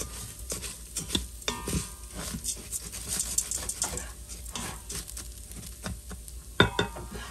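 Rice sizzling as it toasts in oil in a stainless-steel Instant Pot insert, stirred with a wooden spatula that scrapes and clicks against the metal pot, with one sharper knock about six and a half seconds in.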